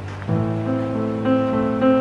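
Background music led by an acoustic guitar, a new chord coming in sharply about a quarter second in.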